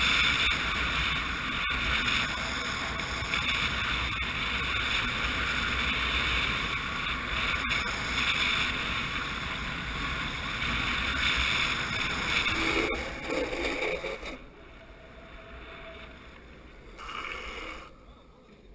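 Wind rushing over the microphone and longboard wheels rolling on asphalt at speed on a downhill run. The rush falls away sharply about fourteen seconds in as the board slows to a stop.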